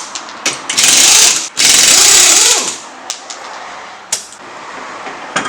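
Air impact wrench rattling in two bursts of about a second each, with a few short blips around them.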